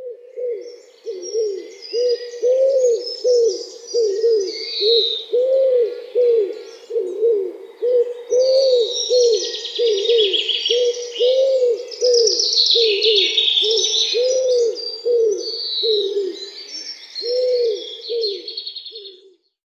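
Common wood pigeon cooing: a long, steady run of low coos, each rising and falling, stopping abruptly near the end. Small songbirds chirp and trill higher up in scattered bursts.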